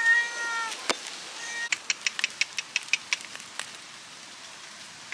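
A cat meows once, a single call that falls slightly in pitch. About a second and a half later comes a run of quick, sharp clicks lasting about two seconds.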